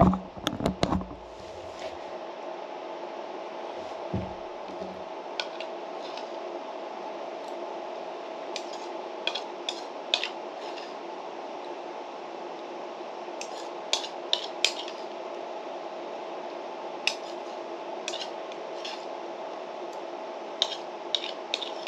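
A metal spoon clinking and scraping in a small black bowl of yogurt, in scattered clusters of light clicks, with a few low knocks at the very start as the bowl is handled on the table. A steady hum runs underneath.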